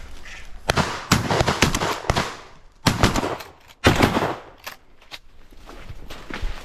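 Flax leaves and tussock grass brushing and crackling against the camera and shotgun as a hunter pushes through them, in three rough bursts of rustling.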